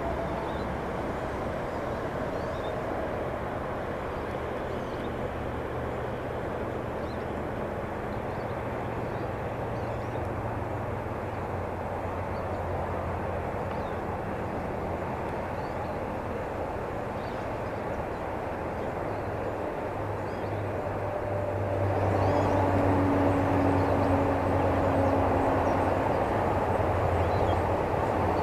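Steady low drone of distant engine noise under an outdoor background hiss, growing louder about three quarters of the way through.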